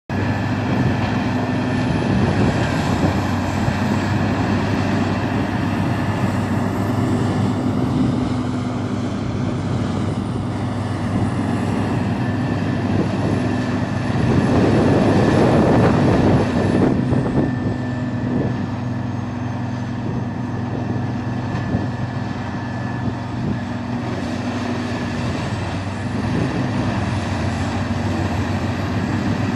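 Peterson 4300B horizontal drum wood chipper running steadily with a low engine drone and a faint high whine, with a louder, rougher stretch about halfway through.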